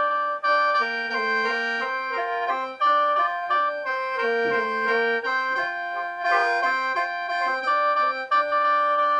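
Lao khaen, a bamboo free-reed mouth organ, played solo in lai sao mode. Several reed notes sound together: a stepping melody over notes held steady underneath as drones.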